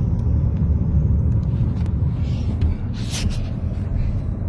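Severe storm: a heavy, steady low rumble with scattered sharp knocks of impacts throughout and a brief hissing crash about three seconds in.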